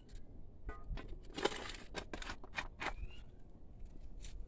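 Digging in stony soil: a quick series of short scraping, gritty strokes of a tool against earth and stones, with another stroke near the end. A short rising chirp sounds about three seconds in.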